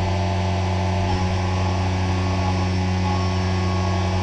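CNC vertical mill cutting metal under flood coolant: a steady hum with several fixed tones from the spindle and cut, over an even hiss of coolant spray.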